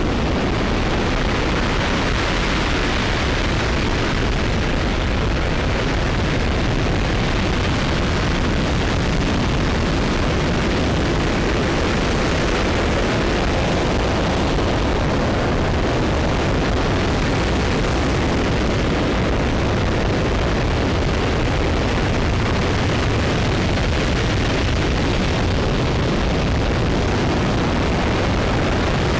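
RS-25 liquid-hydrogen/liquid-oxygen rocket engine firing steadily during a hot-fire test: a continuous loud rushing roar that does not change.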